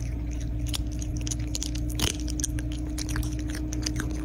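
A cat chewing right against the microphone: a quick run of small crunchy clicks over a steady low hum.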